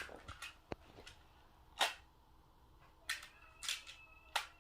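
Plastic magnetic building tiles clicking against each other as pieces are handled and set in place: a handful of separate sharp clicks, spaced out.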